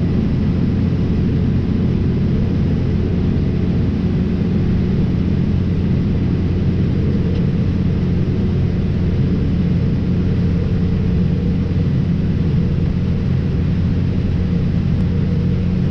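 Tractor and round baler running steadily while baling hay: a constant low engine drone with no breaks.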